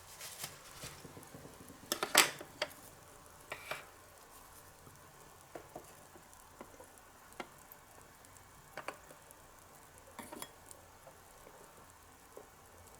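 Small utensils tapping and scraping against tiny toy dishes while stirring and handling miniature food, irregular light clicks, the loudest about two seconds in.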